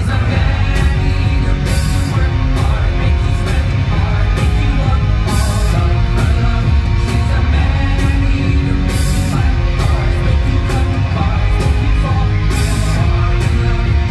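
Loud rock music with heavy percussion from a live stage show, with a constant deep low end and crashes recurring every few seconds.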